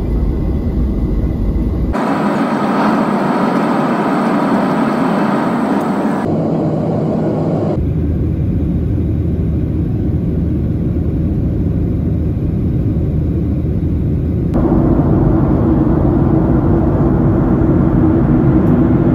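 Jet engine and airflow noise heard from a window seat inside a Boeing 737 cabin, in several short clips joined with abrupt cuts: a low rumble, then a louder, hissier roar lasting a few seconds, then a steady drone with a hum that grows louder near the end.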